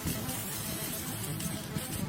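Background music with plucked-string, guitar-like notes.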